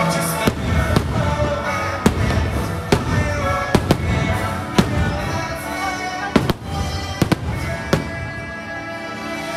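Aerial fireworks shells bursting in a string of sharp bangs, about a dozen over several seconds, some in quick pairs, over the show's accompanying music.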